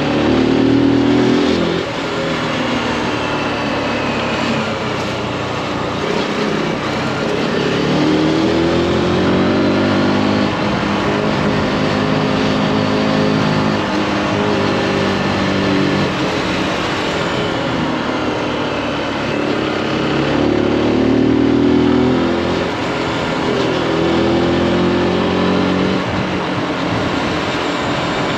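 Zontes G1's single-cylinder four-stroke engine under way, its pitch rising and falling several times as the throttle opens and closes.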